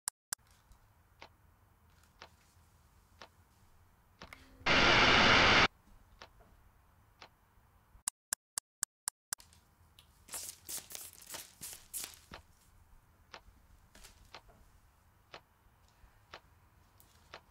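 A clock ticking about once a second, with a loud burst of steady hiss lasting about a second, about five seconds in. A quick run of sharper ticks follows near eight seconds, and a newspaper rustles and crinkles as its pages are handled about ten to twelve seconds in.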